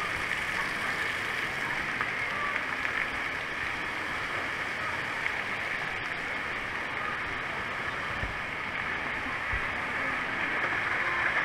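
Steady rush of running and falling water from water-park slides and fountains, with no single event standing out.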